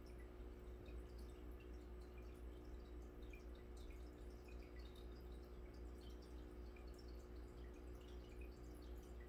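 Faint aquarium bubbling: small, irregular pops and drips of air bubbles breaking at the water surface, over a steady low hum.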